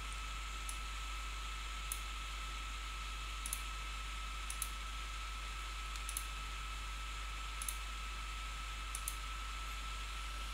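Computer mouse clicking about a dozen times, often in quick pairs every second or so, as line points are placed in a CAD sketch. Beneath the clicks is a steady microphone hiss with a faint high whine.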